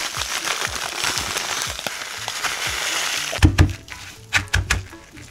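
Panko breadcrumbs crackling and rustling as they are sprinkled over an egg-coated block of noodles for about three seconds. This is followed by soft thumps and rustles as gloved hands press the crumbs on.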